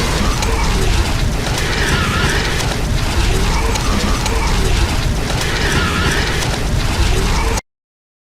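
Whirlwind sound effect: loud rushing wind with a deep rumble and a crackling, rattling texture, repeating about every four seconds, then cutting off suddenly near the end.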